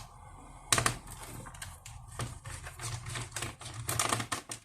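Irregular clicks and taps of a small screwdriver and fingers working on a laptop's plastic case while a screw is being undone, with a few quick clicks near the end.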